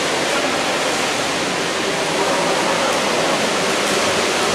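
Steady loud rushing of water churned by water polo players swimming and splashing in a pool, with faint voices underneath.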